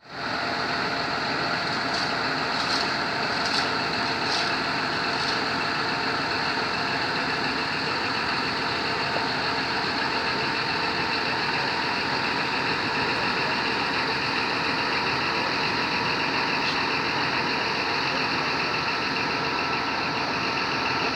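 A heavy vehicle's engine idling steadily, with a few faint high clinks a couple of seconds in.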